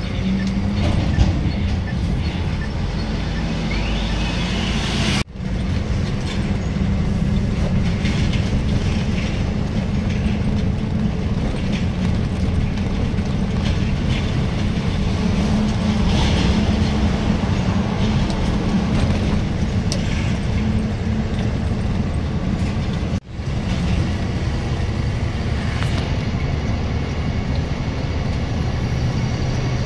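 Loaded lorry's diesel engine running with road noise while driving, heard from inside the cab: a steady low drone. The sound cuts out for a moment twice.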